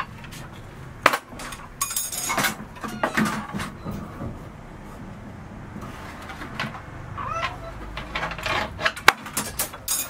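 Irregular sharp knocks and clinks of building work, hard tools and materials striking one another; the loudest strikes come about a second in and about nine seconds in. A short call that bends up and down is heard about seven and a half seconds in.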